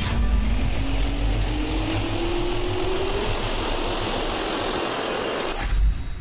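Jet turbine engine spooling up: a steady rushing roar with a whine that climbs slowly in pitch. A short, louder low boom comes near the end, and then the sound drops away.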